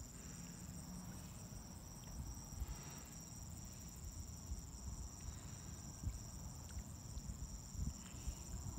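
Crickets trilling steadily: a continuous high tone with a pulsing one just under it at about three pulses a second, over low gusty wind rumble on the microphone.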